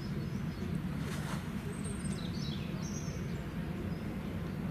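A few short, high bird chirps about two to three seconds in, over a steady low background noise.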